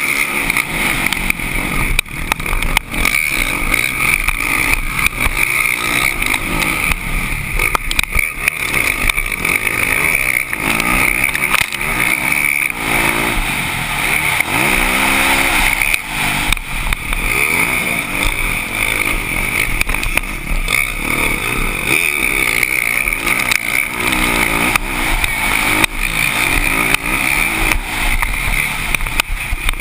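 Motocross dirt bike engine at race pace, picked up by a camera mounted on the bike, its pitch rising and falling as the throttle opens and closes, with wind on the microphone and frequent knocks from the bike bouncing over the rough track.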